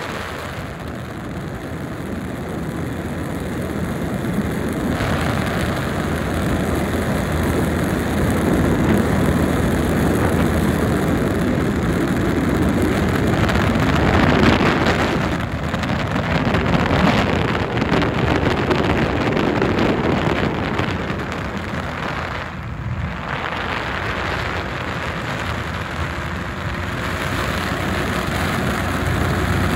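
Rushing wind noise on the microphone, swelling and easing, with two short dips about halfway and two-thirds of the way through.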